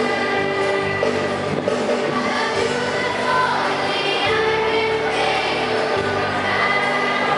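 A group of voices singing a song together in chorus, with electronic keyboard accompaniment and long held notes.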